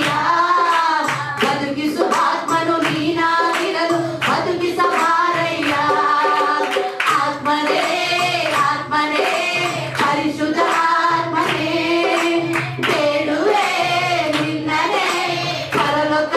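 A man singing a Kannada Christian devotional song through a microphone over backing music with a steady beat.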